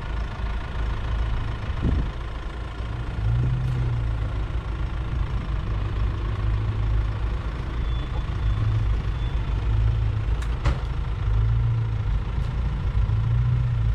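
Nissan Navara pickup's engine running at a low idle-speed crawl down a steep sandy track, its note swelling and easing with light throttle. A few sharp clicks, the clearest about ten seconds in.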